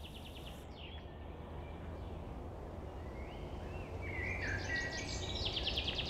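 Songbirds singing in woodland: a rapid high trill at the start and again near the end, with a few short whistled and down-slurred notes in between, over steady low background noise.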